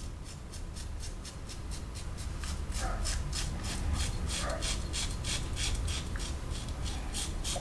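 Merkur 34C closed-comb safety razor with a Treet Carbon blade scraping through lathered stubble in short, quick strokes, about five a second.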